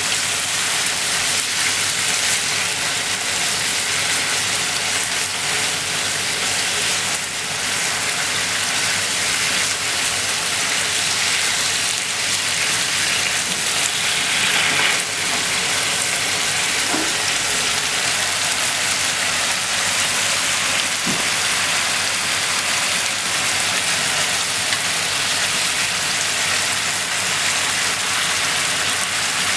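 Pork, cabbage and bean sprouts sizzling steadily in a frying pan with their sauce, a steady hiss like rain, with a couple of faint ticks from the stirring.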